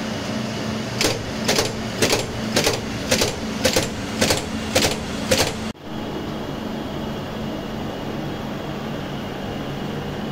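An electrical contactor in the crane's control cabinet clacking over and over, about two sharp clacks a second, nine in all, stopping about six seconds in. A steady electrical hum from the cabinet runs underneath.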